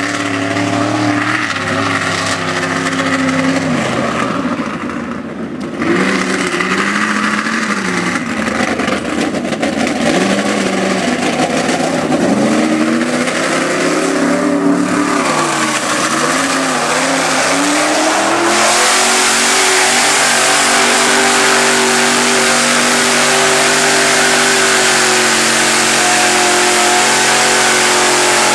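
Lifted 4x4 mud-bogging truck's engine revving up and down repeatedly as it churns through deep mud. About two-thirds of the way in, it gives way to an engine held steady at high revs under a constant rushing noise.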